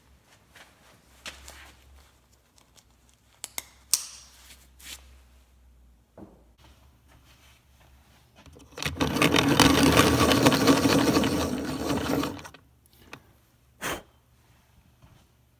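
Woodworking shop sounds: scattered knocks and clatter of wood and tools, then about four seconds of loud rasping tool-on-wood noise starting about eight and a half seconds in, and one more sharp knock near the end.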